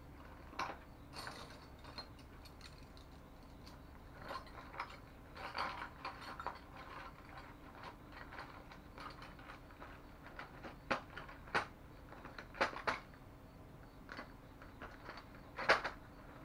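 Irregular clicks and light knocks of hand work on a bicycle: tools and small parts being handled, with the sharpest knock near the end.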